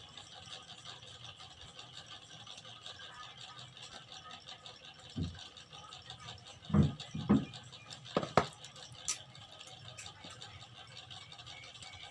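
Handling noise as a phone box and its packaging are opened: a few short knocks and rattles, bunched about seven to eight and a half seconds in, then a sharp click.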